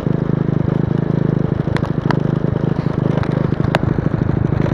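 A small engine running with a rapid, even pulsing beat, with a few sharp clicks over it.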